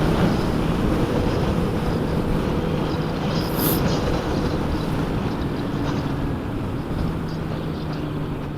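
Heavy wind rush buffeting the microphone of a moving motorcycle, with the engine's steady note faintly underneath.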